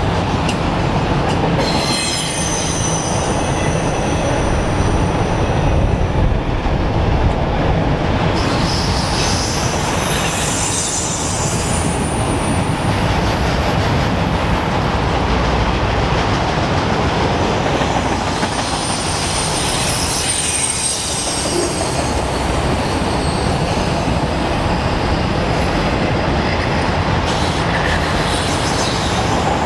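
Freight train of autorack cars rolling past close by: a steady rumble of steel wheels on the rails, with high wheel squeal coming and going several times.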